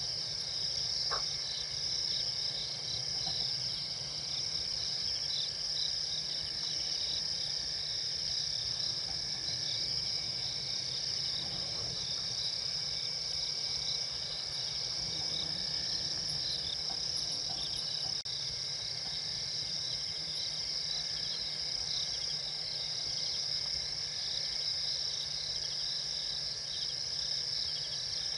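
Steady chorus of crickets and other insects, a dense high trilling with no break, over a low background rumble; one brief faint call sounds about a second in.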